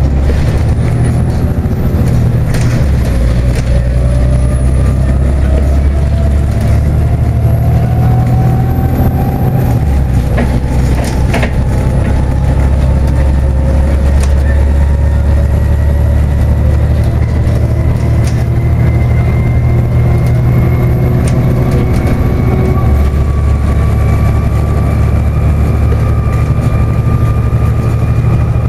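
Volvo B7TL double-decker bus heard from inside the lower deck while under way: its diesel engine and drivetrain give a steady low drone with a faint whine that climbs slowly in pitch. The drone shifts a few times, and short rattles and knocks from the bodywork come through now and then.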